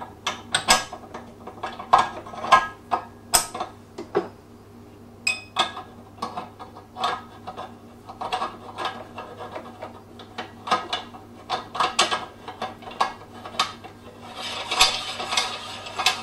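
Metal parts of a meat grinder's head (the fine grinding plate, blade and housing) clinking and clattering as they are fitted together by hand: a long run of sharp irregular clicks, then a denser scraping rattle near the end.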